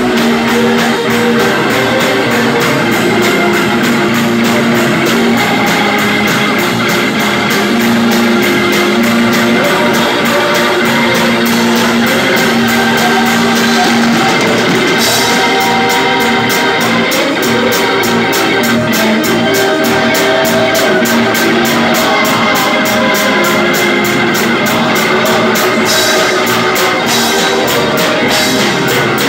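Live church band playing: organ-style keyboard, drum kit and guitar, with a steady beat. The congregation claps along.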